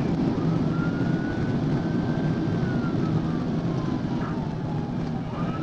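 Police car siren on a slow wail, heard from inside the cruiser over steady engine and road rumble at highway speed. The tone climbs, holds, slides back down, and starts climbing again near the end.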